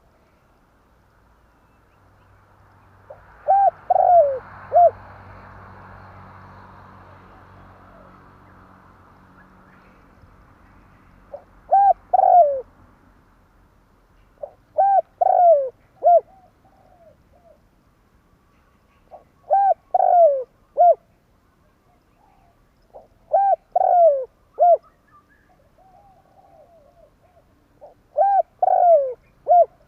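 Spotted dove (tekukur) cooing: a short phrase of three or four coos, repeated six times a few seconds apart.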